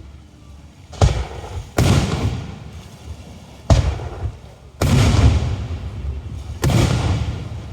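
Fireworks aerial shells bursting: five sharp booms at uneven gaps of one to two seconds, each trailing off in a rumble that dies away.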